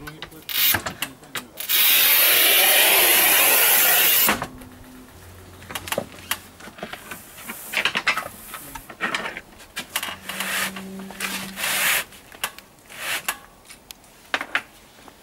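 Scoring wheel of a manual rail tile cutter running along porcelain stoneware tile: a loud, harsh, even scratching that lasts about two and a half seconds. It is surrounded by scattered clicks and knocks from the cutter and tile being handled.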